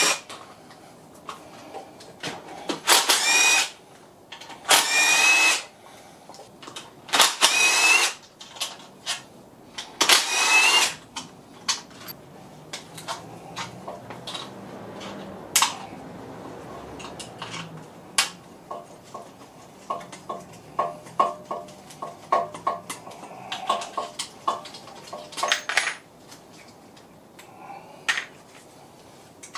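Cordless drill-driver undoing bolts on an engine: four short runs of about a second each in the first half, the motor's whine rising in pitch in each run. After these comes a long string of light clicks and knocks from tools and metal parts being handled.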